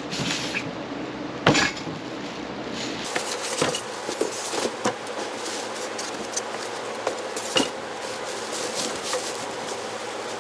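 A packaged unit being worked out of its cardboard box: scattered knocks and clunks over rustling and scraping of the box and packing.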